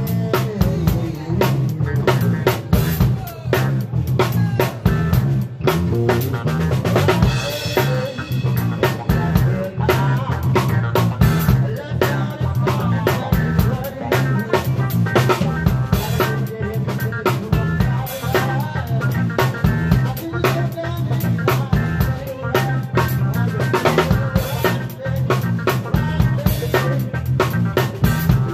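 Live band playing an instrumental funk-soul groove, heard from right beside the drum kit: snare, kick and cymbals loud and close, over bass and electric guitar.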